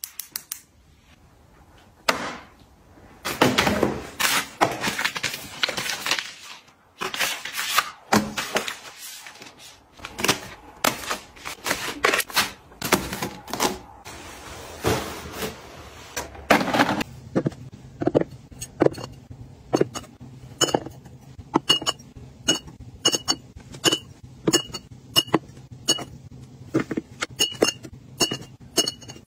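Items handled and set down: knocks, taps and rustles of bottles, boxes and a wicker basket. From about two-thirds of the way in, green glass Perrier bottles clink against each other and the shelf over and over, roughly twice a second, as they are lined up in rows, over a low steady hum.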